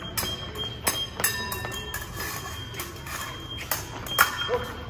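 Épée blades clicking and clashing, several sharp metallic hits that ring briefly, mixed with foot stamps on a wooden floor; the loudest hit comes with a lunge about four seconds in.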